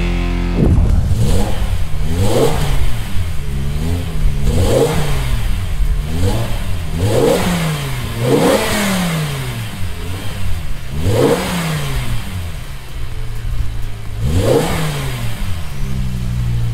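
BMW M5 E61's V10 engine, through a Supersprint stainless steel sport exhaust with four tailpipes, revved in a series of short throttle blips about a second apart, dropping back to idle between them. Near the end it idles for a couple of seconds, gets one last blip, and settles back to idle.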